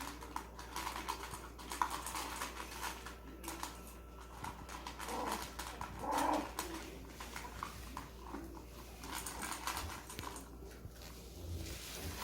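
Pet dog making several short, soft vocal sounds, with scattered light clicks and scuffling between them.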